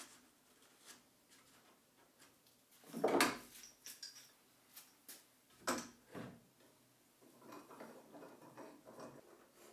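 Small household objects being handled: scattered light clicks and clinks, with a louder knock about three seconds in and another sharp one near six seconds, then soft rubbing or scraping sounds near the end.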